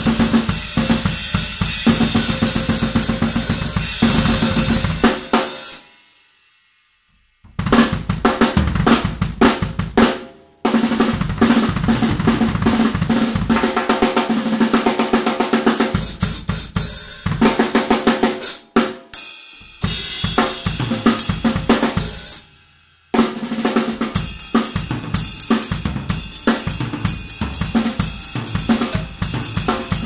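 Drum kit played with sticks, the snare drum to the fore with cymbals and bass drum. The playing stops for about a second and a half about six seconds in, and breaks off briefly a few more times.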